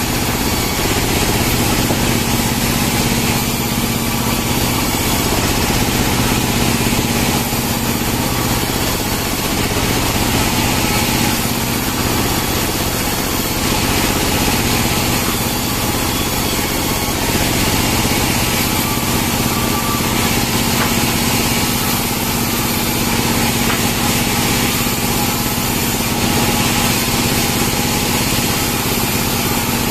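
A band sawmill runs with a steady mechanical drone while the blade cuts pine (Pinus merkusii) logs and slabs.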